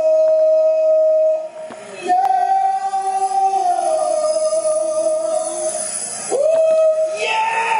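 Small poodle howling in long, held notes that step between pitches, with a rising slide into a fresh howl about six seconds in.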